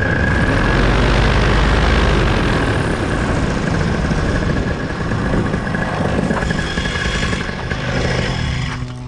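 Loud wind rush over a paramotor's running engine as it glides in low and lands. Near the end the rush drops away and a steady engine hum comes through.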